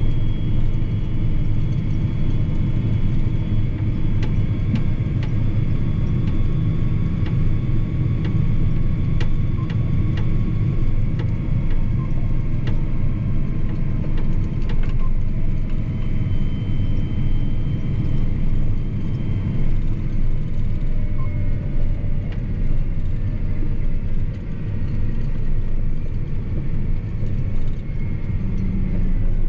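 John Deere 8245R tractor's six-cylinder diesel engine and drivetrain running steadily under load, heard from inside the cab, as a deep, even rumble with a faint steady whine above it. A few light knocks and rattles come through as it travels.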